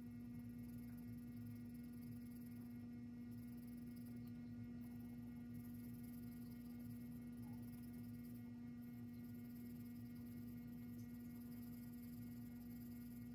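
A faint, steady hum at one pitch with fainter overtones, over a soft background hiss.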